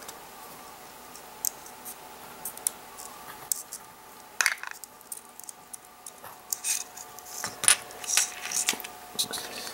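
Small clicks, taps and light scrapes of a plastic model railroad covered hopper and its wires being handled by hand, scattered and irregular, becoming busier in the second half.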